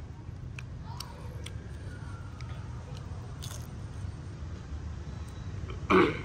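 Faint crunching clicks of someone chewing fried spider, over a steady low rumble. A short loud sound comes near the end.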